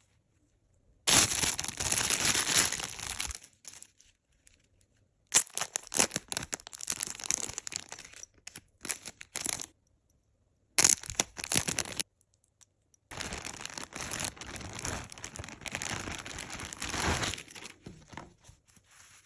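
Packaging being torn open and crinkled by hand, in four bursts of rustling and ripping with short pauses between.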